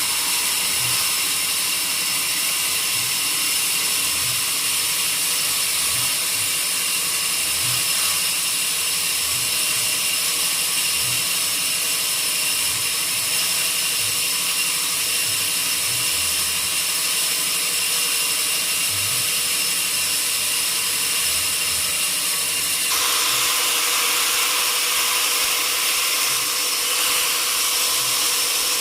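Sawmill machinery running steadily: a constant mechanical noise with a high whine and scattered low knocks, changing abruptly about 23 seconds in.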